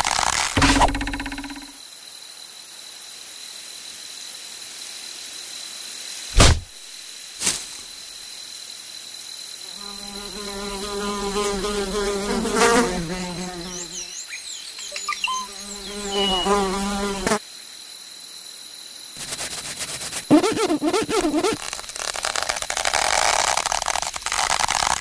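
A flying insect buzzing in several passes of a few seconds each, its pitch wavering up and down. Two sharp clicks come before the first pass.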